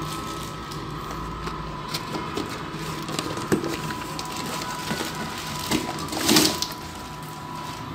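Handling noises from unpacking: scattered light clicks and knocks, with one louder crinkling rustle about six seconds in, over a faint steady high hum.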